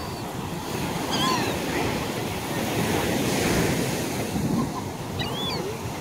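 Surf washing on the shore, with wind buffeting the microphone. A few short, high gull calls come through about a second in and again near the end.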